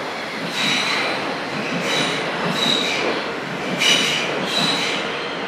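Munich U-Bahn series A train rolling along the platform with a steady rumble from the running gear. Its steel wheels squeal several times in high-pitched whines that come and go.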